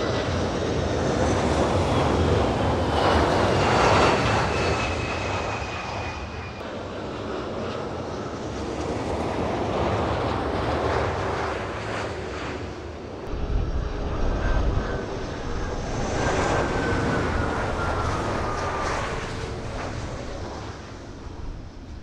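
Widebody twin-engine jet airliners passing close on landing approach: a loud rush of jet engine noise with a whine that falls in pitch as each aircraft goes by. It happens twice, with a deeper rumble coming in about halfway through.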